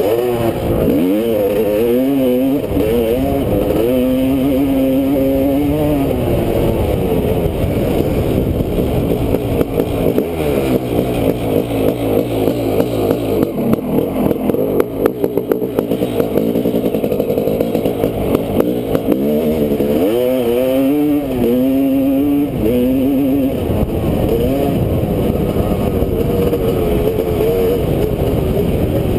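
2001 Honda CR500's single-cylinder two-stroke engine being ridden hard, its pitch climbing and dropping again and again as the rider runs through the gears. For several seconds in the middle it falls to a lower, uneven beat off the throttle before revving back up.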